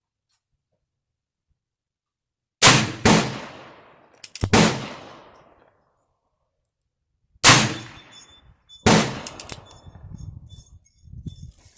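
Heritage Rough Rider single-action revolver in .22 LR firing about five shots at uneven intervals, each crack followed by a short fading ring.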